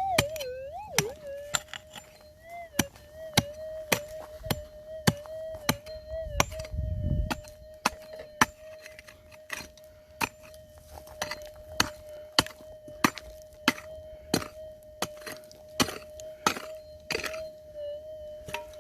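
Pick strikes and scrapes in hard ground, about thirty sharp knocks at uneven spacing, over a gold detector's steady threshold hum. The hum wavers up and down in pitch during the first few seconds, a sign the detector is responding to the buried target, then holds steady. A brief low rumble comes about seven seconds in.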